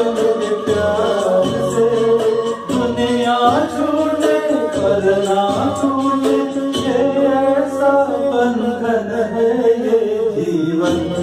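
Music: a Hindi film-song karaoke backing track playing a melodic passage, with a sung line.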